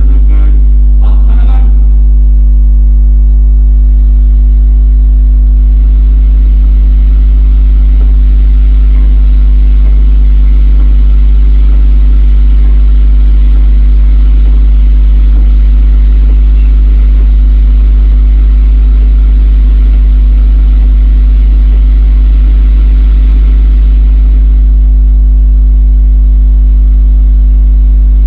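Loud, steady low electrical hum with a buzzy stack of overtones, with a hiss that thickens from about six seconds in and fades again near the end.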